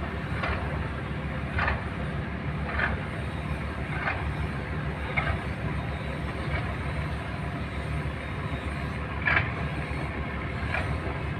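Boat engine running with a steady low rumble, with short swishes about once a second.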